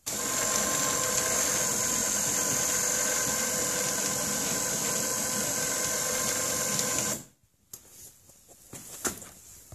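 Electric ATV winch (3,500 lb) running, reeling in its braided poly line with a steady whine. It starts and stops abruptly after about seven seconds, followed by a few light knocks.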